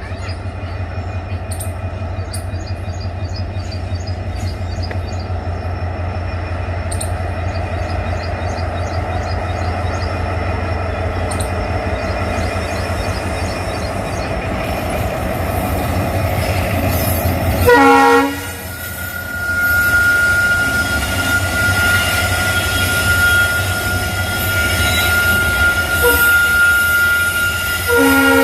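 WDG5 diesel locomotive passing: its engine gives a heavy low throb that grows louder as it approaches. A short horn blast sounds about 18 seconds in. Then the engine sound drops away and the freight wagons roll by with a steady wheel squeal, and the horn sounds again at the very end.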